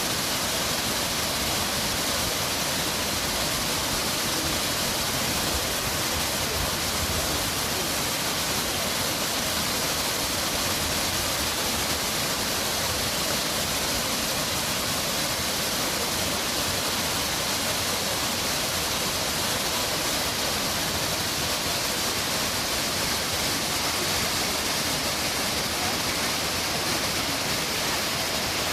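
Ouzoud waterfalls: the steady rush of falling water, an even hiss with no let-up.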